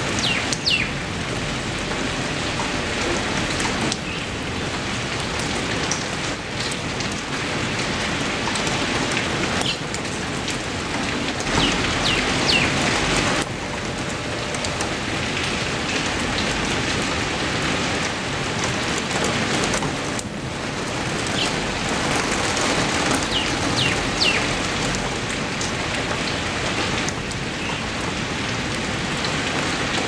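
Steady heavy rain falling, a dense even hiss. A few brief high chirps come through it now and then, and the level steps up and down abruptly a few times.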